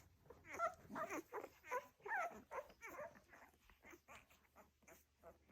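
Welsh Springer Spaniel puppies whimpering and squeaking while they nurse: a run of short, high squeals that slide up and down in pitch over the first three seconds, fainter toward the end.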